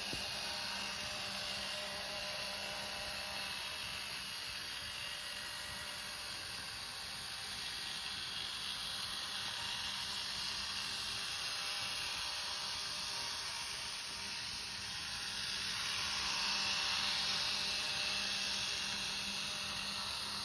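Märklin Z-scale model train running on the track: a faint, steady whir and hiss. It swells for a few seconds about three quarters of the way through as the train passes close.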